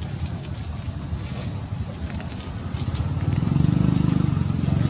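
Outdoor forest ambience: a steady high-pitched insect hiss with faint ticks of dry leaves, and a low droning hum that swells up about three seconds in.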